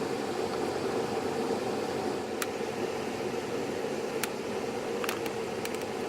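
Steady car-cabin noise while driving, with a few sharp light ticks: one about two seconds in, one about four seconds in, and a short cluster near the end.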